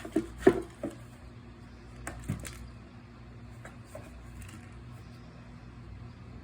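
A cat batting at a toy mouse inside a box with holes: a quick run of knocks and taps in the first second, two more about two seconds in, then a few faint ticks, over a low steady hum.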